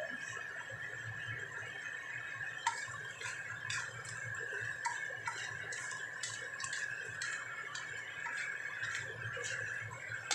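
Shrimp being stir-fried in a wok: irregular clicks and scrapes of the cooking utensil and shells against the wok, starting about three seconds in, over a steady hum.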